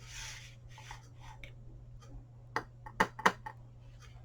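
A brief rustle of paper, then a few sharp taps and clicks from rubber stamps being inked and pressed onto a paper tag on the craft table.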